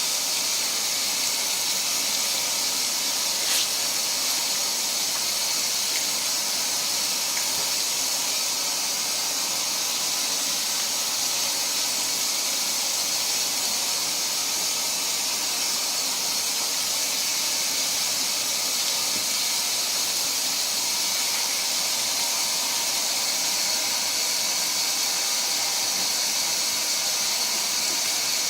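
Steady, unbroken hiss of water running into a washing machine as it fills, with one light click a few seconds in.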